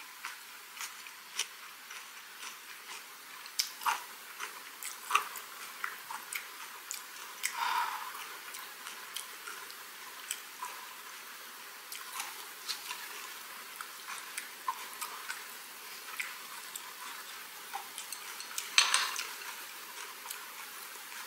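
Close-miked tabletop eating sounds: chopsticks clicking and picking up food as a kelp-leaf wrap of gwamegi, chili paste and vegetables is put together, with small scattered taps and a louder brief clatter near the end.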